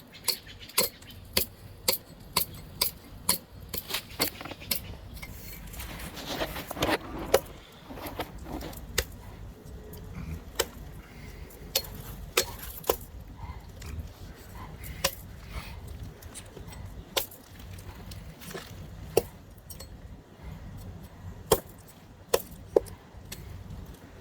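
Axe blows chopping into a log to strip off its bark: a quick, even run of sharp strikes about two a second, then slower, irregular blows.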